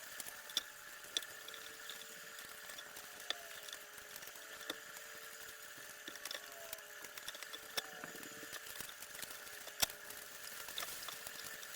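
Quiet steady hum with scattered light clicks and taps, the loudest tap about ten seconds in.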